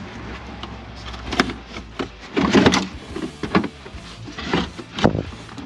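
Workshop clatter: a series of separate knocks and short scraping clatters from tools and suspension parts being handled, the loudest a little over two seconds in, over a low steady hum.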